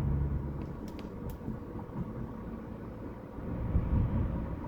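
Steady low road and engine rumble of a moving car, heard from inside the cabin, with a few light ticks about a second in.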